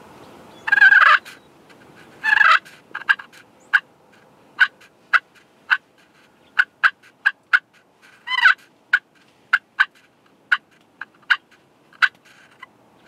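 Turkey slate (pot) friction call worked with a wooden striker, playing hen purrs and clucks to call in a tom. Three longer purring notes stand among about twenty short, sharp single clucks, spaced unevenly.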